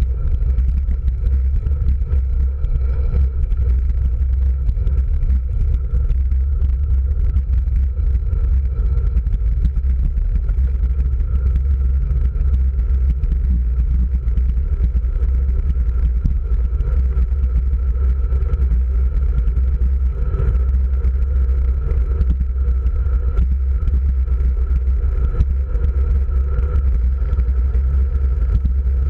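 Wind buffeting the microphone of a handlebar-mounted camera on a moving road bike: a steady, loud, low rumble.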